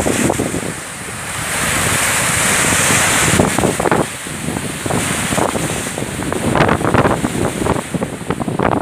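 Sea waves breaking and washing, with wind buffeting the microphone. One surge of surf swells about a second in and falls away at about three and a half seconds.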